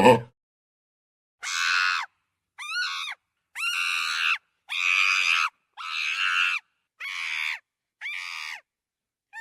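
Chimpanzee screaming: seven loud, high-pitched screams in a row, each under a second long with short pauses between them.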